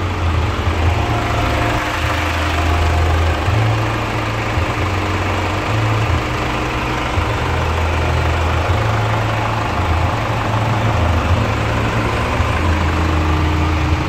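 Chevrolet Captiva's common-rail turbodiesel engine idling steadily, with the hood open, after its turbo intake and fuel system were cleaned to cure a turbo 'snoring' noise.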